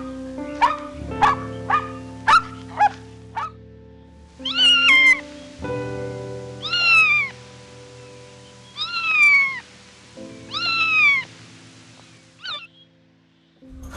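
A cat meowing four times, each meow falling in pitch, with a short fifth meow near the end, over background music. It is preceded in the first few seconds by a run of short, quick animal calls.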